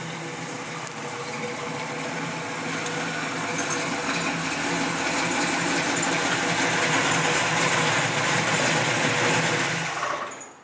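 1966 Chevrolet Chevelle's engine running at low speed as the car rolls in close, growing steadily louder, then cutting off abruptly just before the end.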